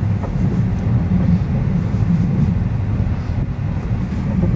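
Tesla Model 3 driving slowly along a rutted mud track, heard from inside the cabin: a steady low rumble of tyres and suspension over the rough ground, with a few faint knocks.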